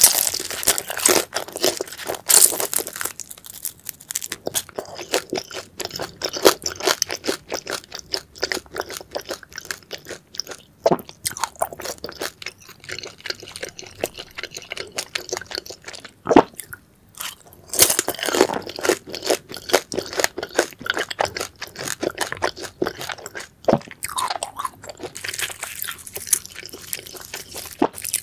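Close-miked crunching and chewing of crispy grilled stuffed daechang (beef large intestine), dense crackling bites with a few sharper crunches standing out.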